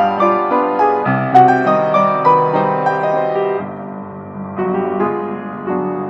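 Piano music, a silent-film accompaniment of notes played one after another; it softens a little past halfway and then picks up again.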